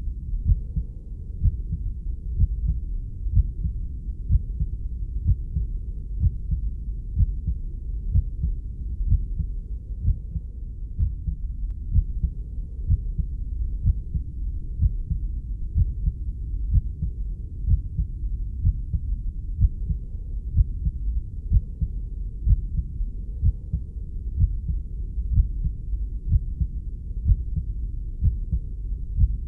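A slow, steady heartbeat, muffled and deep, with regular thumps a little over a second apart over a continuous low rumbling whoosh.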